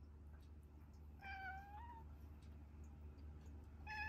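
Domestic tabby cat meowing twice: a short call about a second in that rises slightly at its end, then a second, level meow near the end.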